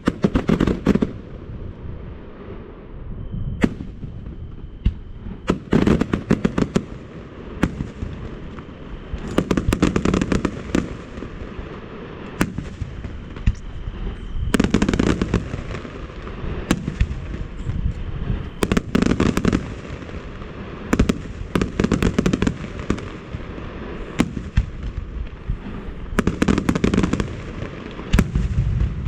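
Fireworks display: shells bursting in repeated deep booms every few seconds, with rapid strings of sharp cracks between them.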